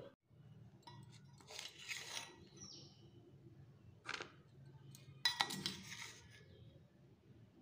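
Faint scrapes and clinks of a metal spoon against a stainless steel bowl as buttered corn kernels are scooped out and dropped into a paper cup. A few separate strokes, the sharpest about four seconds in.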